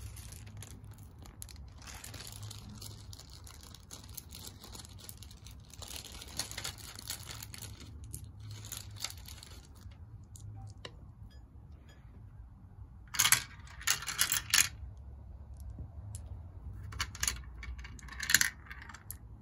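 Clicking and rattling of hard plastic marble-run pieces, with a cluster of sharp clatters about two-thirds of the way through and another near the end.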